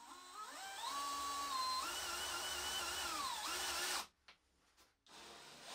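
DeWalt DCD999 cordless drill in first gear driving a 10 × 200 mm full-threaded screw: the motor whine rises as it spins up, runs about three seconds with its pitch shifting under load, then winds down and stops. It starts up again just before the end.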